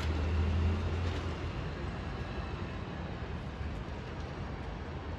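City street noise in a thunderstorm: the low hum of a passing vehicle's engine fades away in the first second or so, leaving a steady hiss of rain and traffic.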